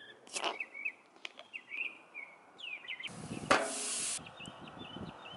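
Birds chirping over and over in short calls. Near the start comes a brief hiss as a beer bottle's twist-off cap is opened, and about three seconds in a louder burst of hiss with a knock lasts about a second and cuts off suddenly.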